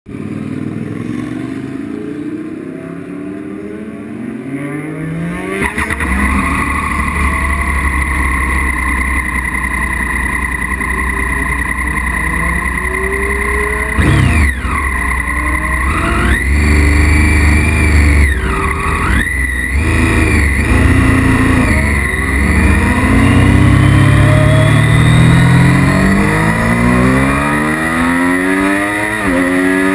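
Honda CBR600RR sport bike's inline-four engine idling, blipped up and down in the middle, then pulling away with the pitch climbing steadily and dropping at a gear change near the end.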